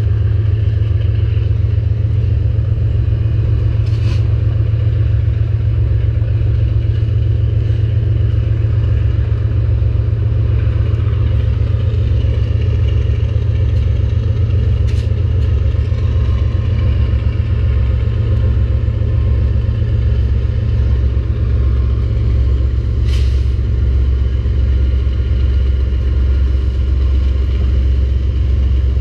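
CN diesel-electric freight locomotives running as a steady low drone as the train approaches slowly, with a few brief faint high ticks or squeaks.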